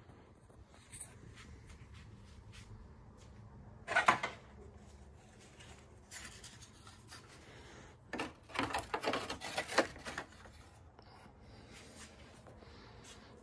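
Rubbing and rustling of a car seat back frame, its upholstery and plastic wrap being handled, with one short loud rub about four seconds in and a run of scraping rustles from about eight to ten seconds in.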